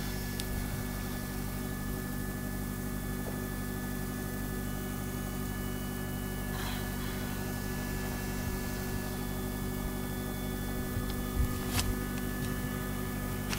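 Boat engine idling with a steady hum, with a few short knocks near the end.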